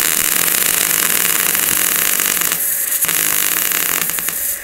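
MIG welder arc crackling steadily as it welds a thin sheet-steel repair panel, with a brief break in the arc near the end.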